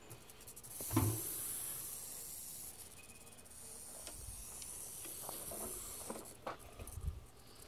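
Great Basin rattlesnake rattling its tail: a steady high buzz that starts about a second in and thins out around six seconds, the snake's defensive warning. A thump sounds as the buzz starts.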